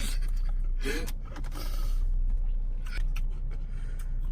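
Small scrapes, rustles and clicks from handling food and packaging inside a car, over the car's steady low hum. A brief voice sound comes about a second in.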